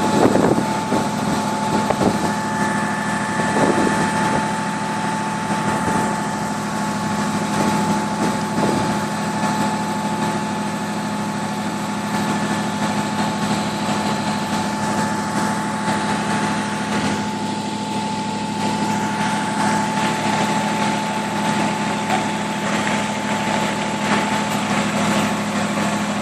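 Heavy diesel truck engines of the concrete pump and mixer trucks running steadily, with a constant higher-pitched hum over the low drone.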